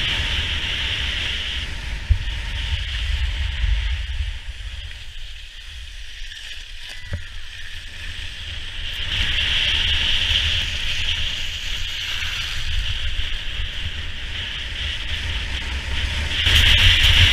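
Skis hissing and scraping over packed snow during a fast downhill run, with wind buffeting the action camera's microphone as a low rumble. It eases off for a few seconds in the middle and grows loud again near the end.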